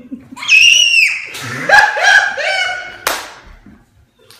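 A child's loud, high-pitched shrieks and squeals, the first one falling in pitch, followed by a single sharp knock about three seconds in.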